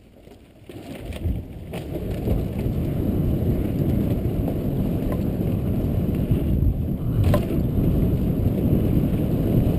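Wind buffeting the helmet camera's microphone, mixed with the mountain bike's tyres rumbling over a dirt trail. It starts about a second in and builds over the next second or two as the bike picks up speed downhill, with one sharp knock about seven seconds in.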